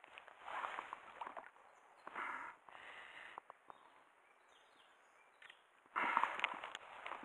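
Spring cicadas (haruzemi) calling from the trees in pulsing bursts. About six seconds in, a louder rustle with sharp clicks cuts in.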